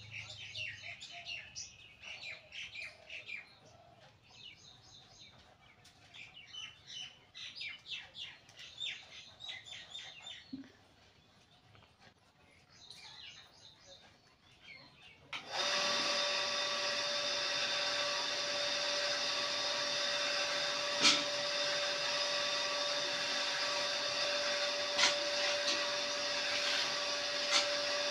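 Birds chirping in short bursts. A little past halfway a steady electric machine hum starts abruptly, louder than the birds, with a few sharp clicks over it.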